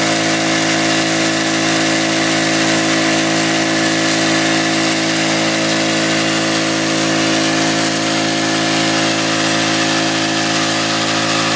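Small engine of a test dredge running steadily at constant speed, driving the pump that supplies the dredge's water flow.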